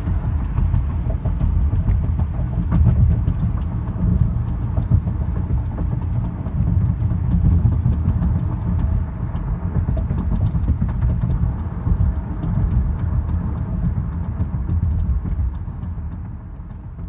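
2018 Honda Accord driving, with steady low road and engine rumble and faint, irregular light clicking from the front driver's side. The owner puts the click down to the plastic cap on top of the front strut, likely rattling against the hood. The sound fades out near the end.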